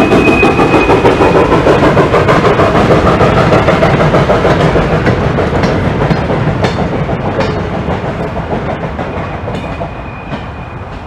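Goods train of hopper and tank wagons rolling past behind a steam locomotive, the wheels making a rapid clatter of clicks over the rails. The noise fades steadily as the brake van passes and the train moves away.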